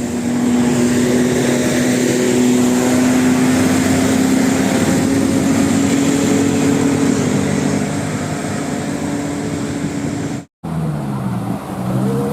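A heavy road vehicle's engine running loudly, its pitch rising slowly as it pulls. The sound cuts off abruptly about ten and a half seconds in, and a held tone starts near the end.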